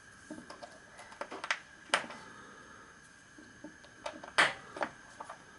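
Small copper tube pieces with brass caps being handled and set down on a wooden workbench: a scatter of light clicks and taps, the sharpest about two seconds in and again about four and a half seconds in.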